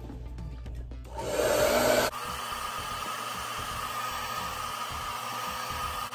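Handheld hair dryer blowing on the glued lace of a wig at the hairline. It comes in loud about a second in, then drops suddenly to a steady, quieter whir with a faint whine.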